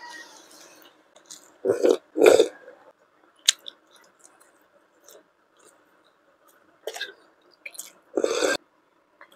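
Close-miked eating of steamed momos: soft chewing and small mouth clicks, with three louder short mouth sounds, two close together about two seconds in and one near the end.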